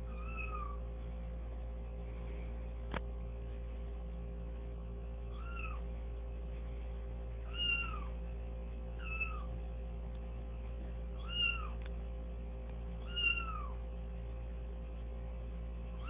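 Recorded cat meows played through a home stereo speaker: about six short meows a second or two apart, over a steady low hum.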